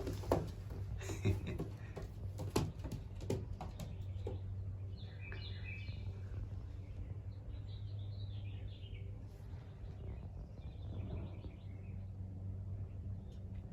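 Young racing pigeons in the loft giving short, high squeaky peeps in three spells, over a steady low hum. A few sharp clicks or taps come in the first few seconds.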